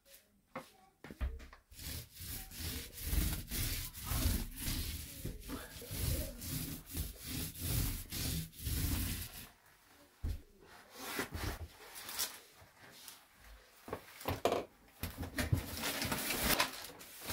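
Small paint roller rolling paint onto a panelled door in repeated, uneven rubbing strokes.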